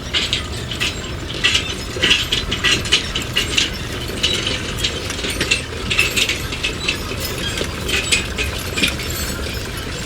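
Rapid, irregular mechanical clicking and rattling over a steady low hum.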